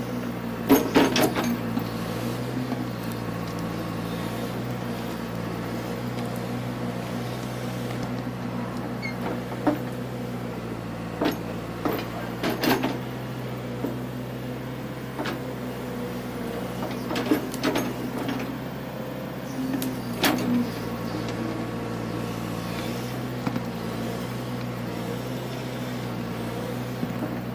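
John Deere 410 loader backhoe's engine running steadily, with a handful of sharp clanks and knocks scattered through, the loudest about a second in.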